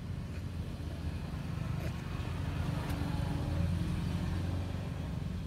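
A motor engine running with a steady low hum, getting louder toward the middle and easing off again.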